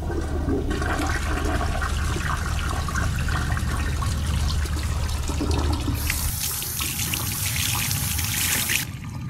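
Toilet flushing: water rushes steadily for several seconds, turns hissier about six seconds in, and stops shortly before the end.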